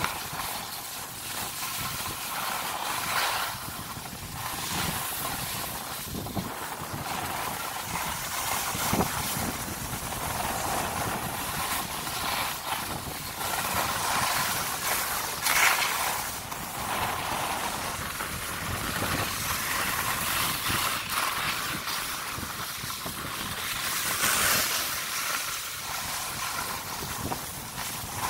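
Skis sliding and scraping over groomed snow: a steady hiss that swells and fades in waves, strongest a few times through.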